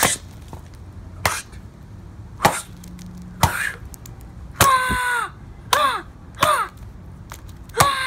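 A large kitchen knife hacking into a pumpkin on concrete: sharp chopping strikes about once a second. From about halfway, each strike comes with a short shout from a boy, falling in pitch.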